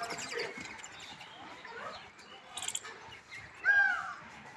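A single short, loud animal call about three-quarters of the way in, its pitch arching up and then falling away, over faint scattered chirps and a few clicks.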